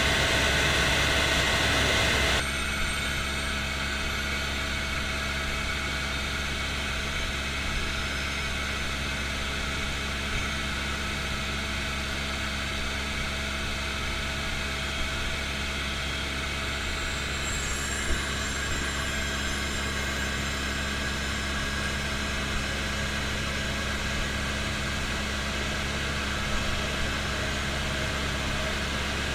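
Helicopter heard from inside the cabin in flight: a steady drone of rotor and engine with a constant low hum and a few steady higher tones. A little over two seconds in it drops slightly in loudness and hiss, and a few faint ticks come through.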